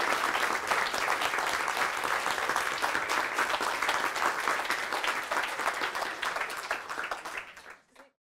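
Audience applauding steadily, the clapping fading over the last second and then cutting off near the end.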